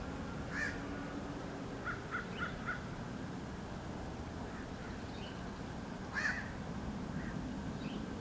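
Bird calls: one call, then a quick run of four short notes, then another call several seconds later.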